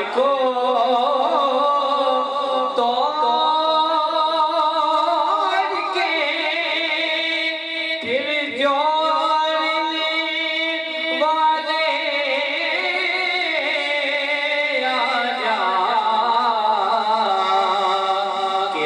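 A man singing a naat, an Urdu devotional song in praise of the Prophet, into a microphone, in long held notes that slide and waver between pitches.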